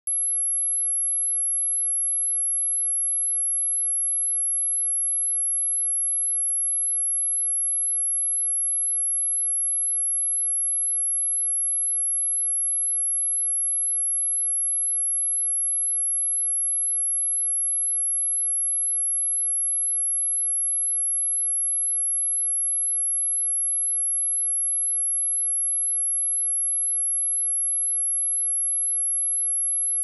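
Electronically generated pure sine-wave test tone at 11102 Hz, a single very high-pitched tone held steady without any change. It is a speaker test and speaker-cleaning tone.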